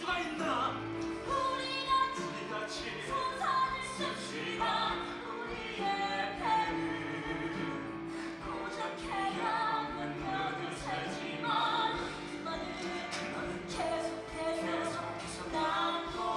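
A stage musical song: a solo voice singing over instrumental accompaniment.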